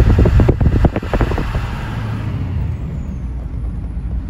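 Car driving, with a steady low engine and road rumble heard from inside the cabin. A quick run of crackling clicks sounds over it during the first second and a half, then dies away.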